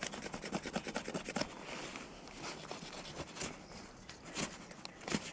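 Folding pocket-knife blade scraping bark off a wooden stick to make a skewer: quick repeated strokes that thin out after about a second and a half into a few separate scrapes.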